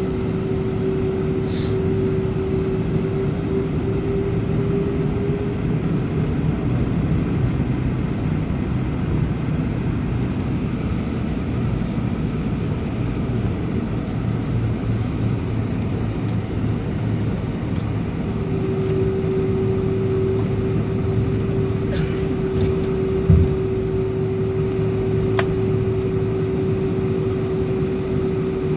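Cabin noise inside a Boeing 747-400 with its engines running: a steady rumble with a steady hum that fades out about six seconds in and comes back about eighteen seconds in. A single low thump comes a few seconds before the end.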